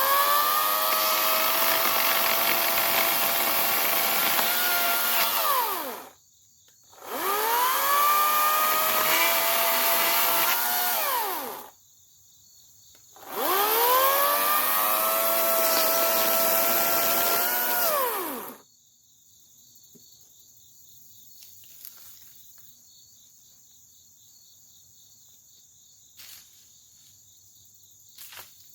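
EGO 56-volt battery chainsaw run three times with the trigger squeezed, for about six, four and a half and five seconds. Each time it spins up with a rising whine, holds a steady whirr and winds down as the trigger is let go. After the third run only crickets chirping are left.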